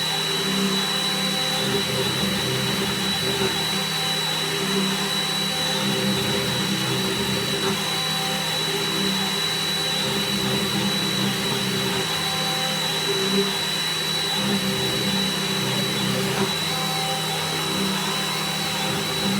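BF20 CNC milling machine running and face milling: the spindle and cutter make a steady mechanical drone with a constant high whine.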